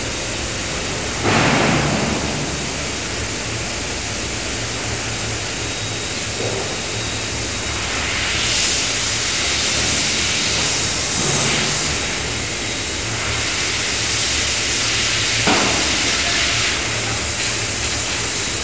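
Five-ton electro-hydraulic die forging hammer striking a few heavy blows several seconds apart, the strongest about a second in and late on, over a steady loud hiss and roar of machinery.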